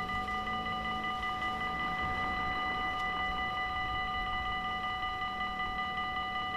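Level-crossing warning bells ringing steadily while the barriers are down, signalling an approaching train, with a faint low hum underneath.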